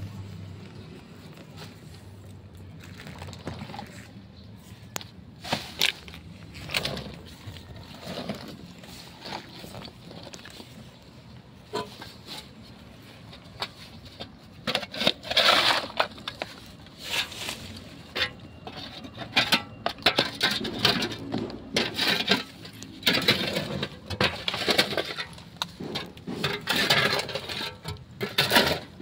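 Steel shovel scraping and digging through broken concrete rubble, with irregular scrapes, knocks and clinks of the chunks as debris is cleared out of an opened concrete tomb niche. The strokes are sparse at first and come faster and louder from about halfway through.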